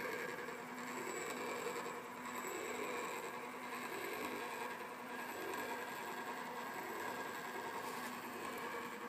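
Three-spring clockwork motor of an Opera cylinder phonograph running, its gear train whirring steadily.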